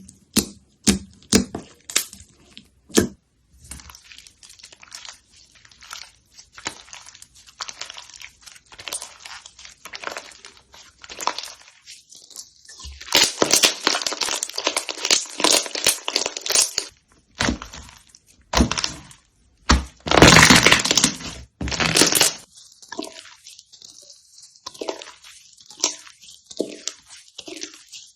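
Slime being pressed and stretched by hand, giving sharp clicks, dense crackling and popping air pockets.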